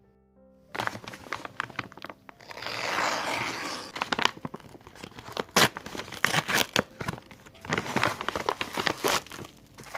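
A plastic parcel being handled and torn open: crinkling and crackling, with a longer tearing sound about two to four seconds in.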